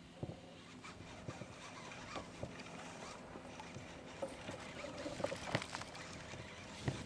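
Quiet, scattered clicks and knocks of a fishing rod and reel being handled in a plastic fishing kayak, becoming more frequent toward the end.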